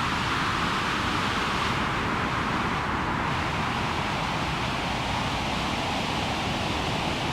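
Synthesized white noise run through band-pass filters, a steady hiss strongest in the upper middle over a low rumble, shaped to sound like rain and still dry with no reverb. The top end dips briefly about two to three seconds in.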